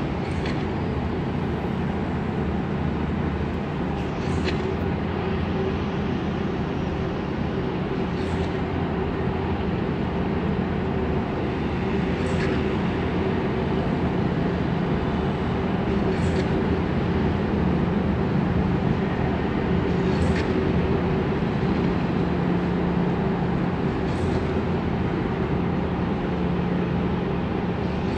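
Steady city background hum heard from high above busy streets: distant traffic noise with a constant low drone under it. A faint, short, high-pitched tick recurs about every four seconds.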